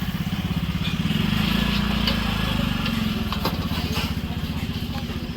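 A small engine running steadily close by: a low, rapid chugging that swells slightly a second or two in, with a few light clinks over it.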